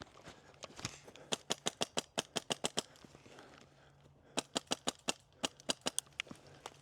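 Airsoft rifle firing two quick strings of about ten sharp shots each, at roughly six or seven shots a second, with a short pause between them.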